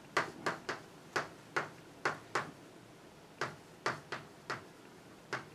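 Chalk tapping against a blackboard while writing: about a dozen sharp clicks at uneven intervals, with a short pause near the middle.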